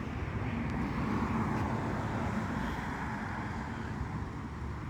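Steady rumble and hiss of street traffic on wet roads, swelling a little about a second in and easing off again.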